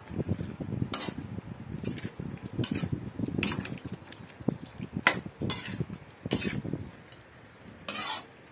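Metal spatula stirring chicken pieces in a metal wok: a soft shuffle of meat being turned, broken by sharp scrapes and clanks of the spatula against the pan about seven times at irregular intervals. The stirring eases off near the end.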